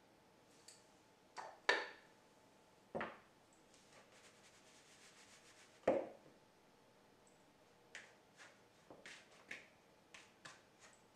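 Hands working flour in a plastic mixing bowl on a countertop: a few sharp knocks, the loudest about six seconds in, then a run of light clicks and soft rubbing as the dough is mixed by hand.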